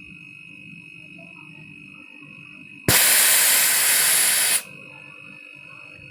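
A loud blast of compressed gas hissing out of refrigeration tubing, starting abruptly about halfway through and cut off sharply under two seconds later, as when a freezer evaporator is blown through to flush out oil that has collected in it.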